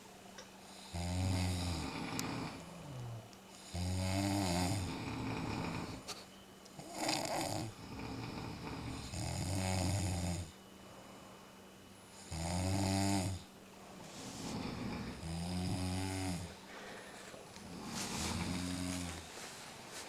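A person snoring in a drawn-out, rhythmic series: about seven rasping snores, one every two to three seconds. The snores are put on for a snoring contest, not slept.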